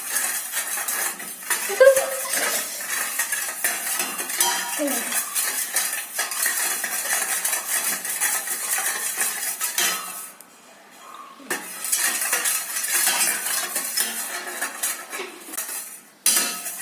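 A spoon stirring sugar into black tea in a pot, with rapid clinks and scraping against the pot's sides. It pauses briefly about two-thirds of the way through.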